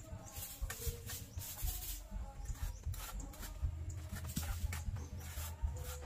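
Scratchy rubbing strokes, irregular and about once or twice a second: a paintbrush scrubbing paint onto a rough concrete wall.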